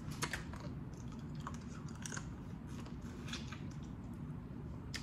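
Close-up mouth sounds of a person eating boiled crawfish: chewing, with scattered short wet smacks and clicks.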